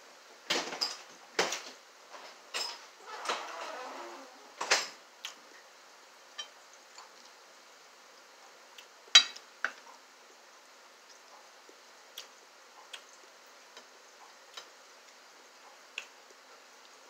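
Cutlery clinking and scraping against a glass bowl and plate in a quick cluster over the first five seconds, then one sharp clink about nine seconds in. After that, sparse faint clicks of chewing.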